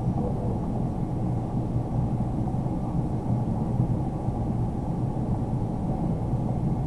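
Steady low rumbling background noise with no distinct handling clicks or knocks.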